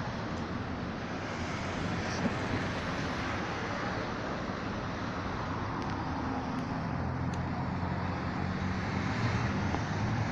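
Steady road traffic noise, with a low engine hum growing louder in the second half.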